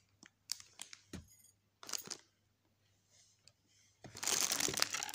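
Cosmetics packaging being handled: scattered light clicks and taps, then loud crinkling and rustling from about four seconds in.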